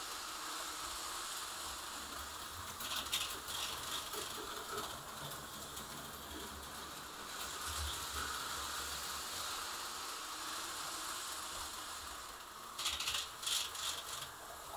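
HO-scale slot cars running on plastic track: a steady faint motor noise, with rattling clicks about three seconds in and a longer cluster near the end.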